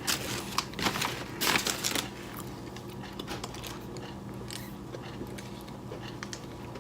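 Close-up mouth sounds of someone eating McDonald's french fries: several crisp clicks of biting and chewing in the first two seconds, then quieter chewing. A low steady hum runs underneath.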